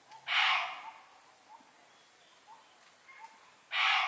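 Two harsh, rasping animal calls about three and a half seconds apart, each lasting about half a second. Between them, faint short chirps come roughly once a second.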